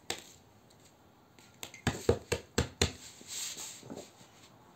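Handling sounds on paper: a sharp click just after the start, then a quick run of about five sharp clicks and taps about two seconds in, followed by a soft rustle.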